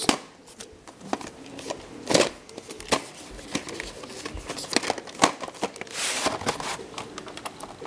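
A VHS tape and its plastic case being handled: a run of sharp clicks and taps, with a longer rustle about six seconds in.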